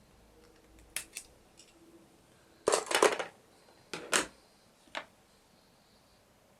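Sharp clicks and a short clatter of small hard parts and tools being handled while an RC model car is being worked on: a couple of clicks, a louder rattling burst about three seconds in, then a few more clicks.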